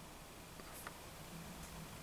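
Quiet room tone in a small wooden room, with a few faint, short clicks.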